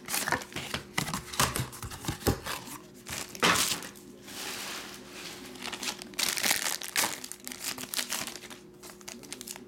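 Plastic wrapper of a trading card pack crinkling and being torn open by hand in a run of sharp crackles, with a cardboard box being handled.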